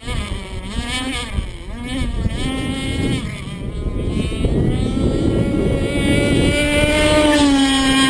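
Radio-controlled catamaran boat's motor running at speed across the water, its pitch rising and falling with the throttle, then holding steady and growing louder as the boat comes past near the end. Wind buffets the microphone underneath.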